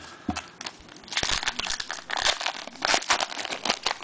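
Crinkling of a foil trading-card pack wrapper being handled, in irregular crackling bursts that start about a second in.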